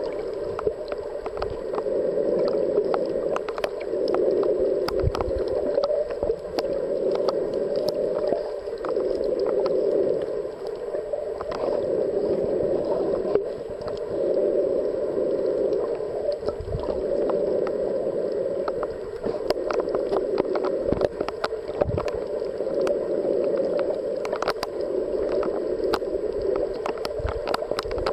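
Muffled underwater noise picked up by a submerged camera, a dull rushing that swells and eases every few seconds, with scattered small clicks.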